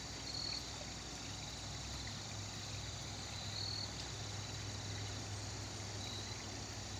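Crickets and other insects trilling steadily in an outdoor chorus, with three short high chirps a few seconds apart. A low steady hum runs underneath.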